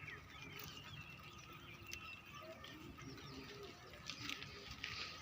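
Faint birds chirping, with short high calls scattered through, over quiet outdoor background with a few light clicks.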